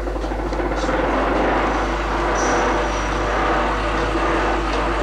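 Hand-cranked honey extractor spinning: its geared crank and frames whir in the steel drum, building up over the first second and then running steadily as the spinning flings honey out of the combs.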